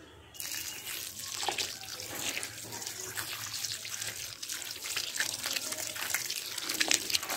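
A thin stream of water pouring onto dry, lumpy soil in a galvanized metal tub, a steady splashing with small crackles as it soaks in. It begins abruptly just after the start.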